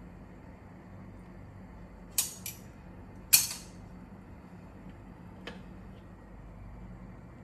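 A quick pair of sharp clicks about two seconds in, a louder click just after, and a faint one later, over a steady low hum.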